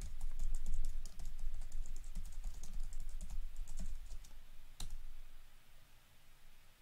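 Rapid typing on a computer keyboard: a quick run of key clicks for about four seconds, one sharper click just before five seconds in, then the keystrokes stop.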